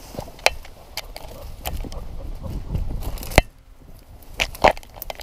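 Tall grass and brush rustling and crackling against a camera worn by a Labrador retriever as she pushes through, with a low rumble of movement and several sharp snaps, the loudest about three and a half seconds in.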